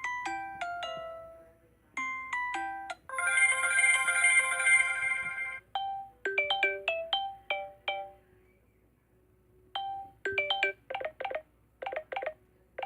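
Samsung Galaxy S7 edge stock ringtones playing one after another: short melodic phrases of struck, quickly fading notes, one of them a dense, shimmering held chord, with brief pauses between tones.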